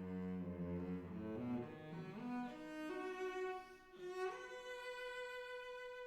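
Background music: slow bowed strings, cello and violin, holding long notes.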